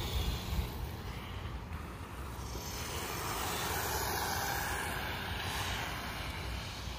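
WLtoys 12428 RC truck's brushed electric motor and gears whining as it drives on a 3S battery, the whine swelling and fading as the truck speeds around. A low rumble runs underneath.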